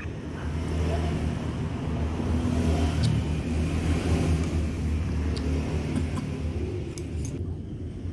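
A steady low motor rumble, like an engine running nearby, fills the background. A few light clinks of a metal spoon against a glass bowl come about three, five and seven seconds in.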